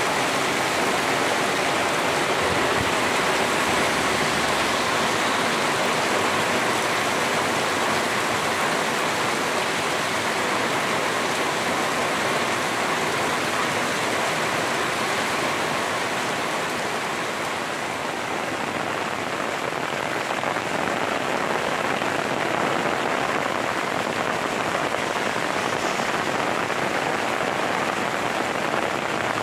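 Heavy rain falling steadily on a road and open ground, a continuous even hiss that softens slightly for a moment past the middle.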